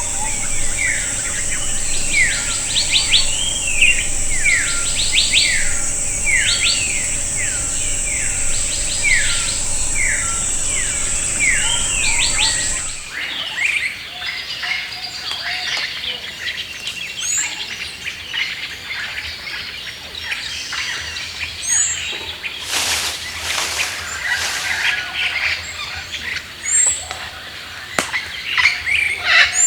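Jungle birds calling. For the first half a bird repeats a quick falling call about twice a second over a steady high-pitched insect drone; then the sound changes abruptly to scattered short chirps from birds.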